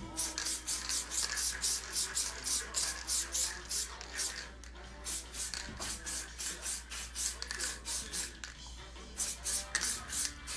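Aerosol spray-paint can spraying through a stencil in rapid short hissing bursts, about four a second, pausing briefly about eight seconds in.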